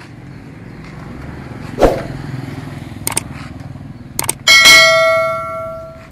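A sharp knock and a few light clicks, then a metal object struck about four and a half seconds in, ringing with a clear bell-like tone that fades over about a second and a half, over a low steady hum.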